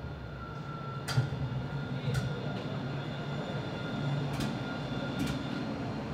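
A rail vehicle running close by: a steady electric whine over a low rumble, with four sharp clacks, the loudest about a second in.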